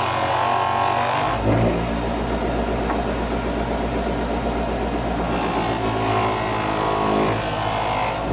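Electric polishing machine's motor running steadily under load while the hammer head is polished, its sound shifting about a second in and again around five seconds in.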